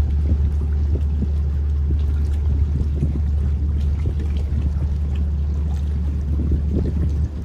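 Inland motor cargo ship's diesel engine running with a steady low drone as the vessel moves slowly past, with water churning and splashing along its hull. The drone drops away sharply near the end.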